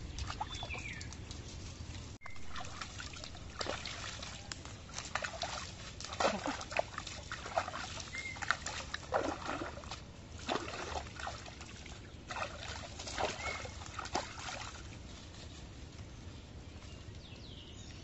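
Hands splashing and sloshing in shallow pond water, with scattered irregular crackles and rustles of dry leaf litter as someone shifts and moves on it.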